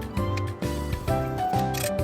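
Background music: a melody of short pitched notes over a stepping bass line, with a steady beat.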